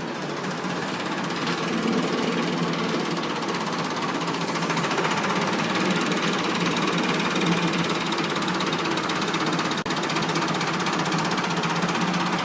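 Massey Ferguson 375 tractor's diesel engine running steadily with a rapid knocking clatter, growing louder over the first two seconds.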